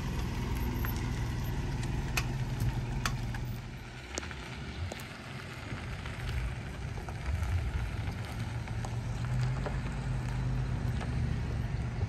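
A vehicle driving slowly on a dirt road: a steady low engine drone that eases off for a couple of seconds in the middle and then picks up again, with scattered small ticks over it.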